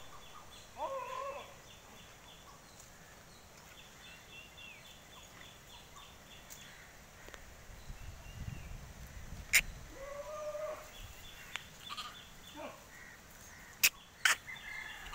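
Farmyard sounds: two short pitched animal calls, one about a second in and one about ten seconds in, over stretches of rapid high chirping. A few sharp clicks come in the second half and are the loudest sounds.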